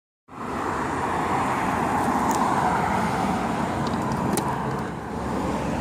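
Steady outdoor background noise, a rushing hiss strongest in the lower middle range, with a few faint ticks around the middle.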